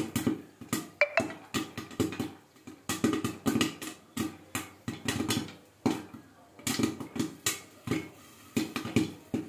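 Popcorn kernels popping in a covered kadai under a glass lid: rapid, irregular sharp pops, several a second, thinning slightly near the end.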